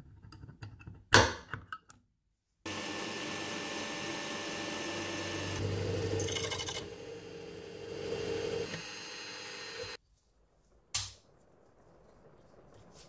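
A metal punch marks the steel screwdriver shank with a few light clicks and one sharp snap. Then a benchtop drill press runs for about seven seconds as a twist bit drills into the shank, stopping abruptly, and a single click follows.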